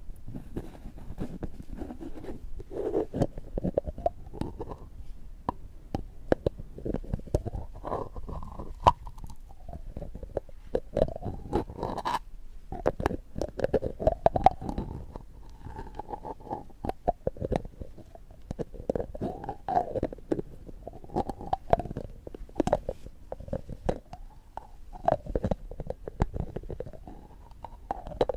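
Close-miked ASMR trigger sounds: a dense, irregular run of small clicks and crackles over a low rumble.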